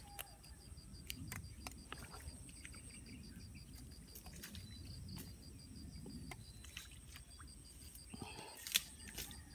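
Faint outdoor background: an insect chirping in a fast, even pulse over a low rumble, with scattered small handling clicks and one sharper click near the end.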